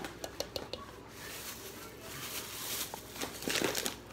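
Light clicks and taps of a plastic measuring spoon over a mixing bowl, then the crinkling rustle of a plastic bag being handled, loudest near the end.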